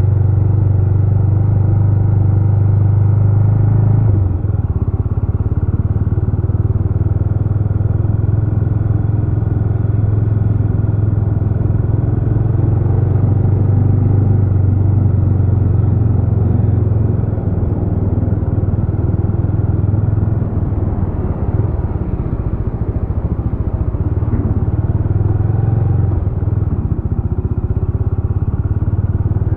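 Jawa RetroTrail 650's 650 cc single-cylinder engine running under way, heard from the rider's seat. Its steady note drops about four seconds in, then rises and falls again in the second half of the ride.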